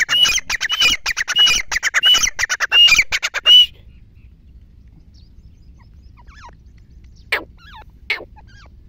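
Grey francolin calling at close range: a loud, rapid series of harsh repeated notes, each phrase topped by a higher note about every 0.7 s, that stops abruptly about three and a half seconds in. Two short single calls follow near the end.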